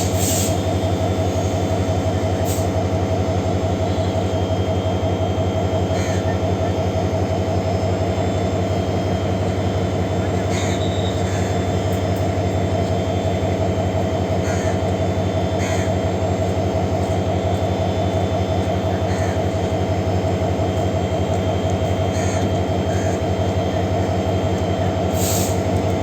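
Rangpur Express passenger train arriving at a station: a steady mechanical drone runs throughout, with faint short clicks every few seconds.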